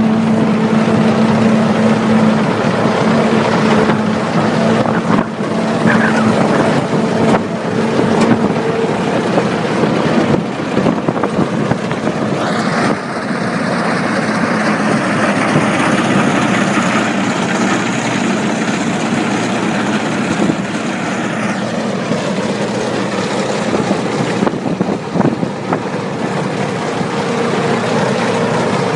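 A tractor-driven forage chopper cutting and chopping a standing green oat crop. There is a steady engine hum under a dense rushing noise of crop being cut, and the hum is clearest at the start and near the end.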